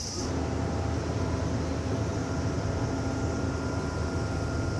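High insect chirring cuts off just after the start, giving way to a steady low mechanical hum with a few faint steady tones above it.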